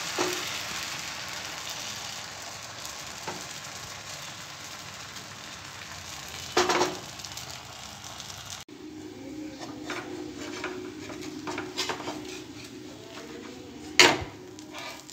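Dosa batter sizzling on a hot, oiled cast-iron tawa, with a few sharp clacks and scrapes of a metal spatula against the pan. The loudest clack comes near the end as the dosa is lifted and turned.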